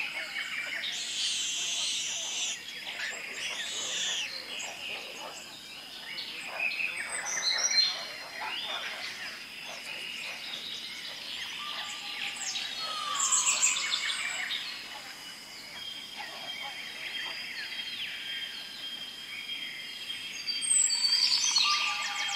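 Jungle ambience of many birds chirping and calling over a steady high-pitched tone, with a falling whistle about 13 seconds in and another near the end.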